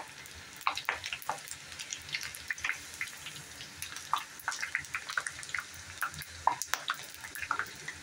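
Murukku deep-frying in groundnut oil in an iron kadai: a steady bubbling sizzle dotted with many small crackles and pops.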